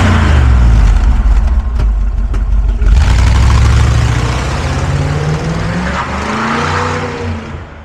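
1956 Ford Thunderbird's 312 V8 revving. It blips up and settles at the start, climbs in a longer rev about five to six seconds in, then drops back, and fades out at the end.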